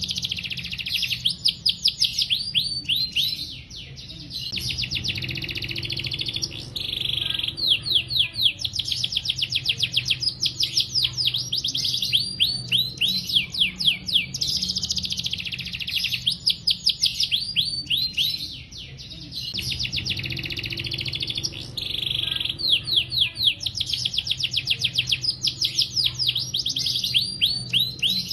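Domestic canary singing a long, continuous song of rapid trills and rolls, the notes repeating many times a second, with short pauses about four seconds in and again near the middle.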